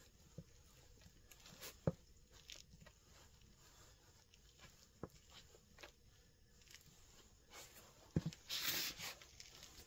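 Light, scattered footsteps of New Balance 574 sneakers on a hard floor: a few soft sole taps, then a louder cluster of scuffs and steps near the end.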